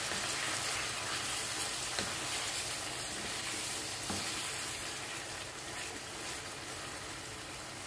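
Chicken drumsticks sizzling in a thick tomato-and-onion masala in a frying pan as a wooden slotted spatula stirs them, with a couple of soft knocks of the spatula on the pan. The sizzle grows gradually quieter.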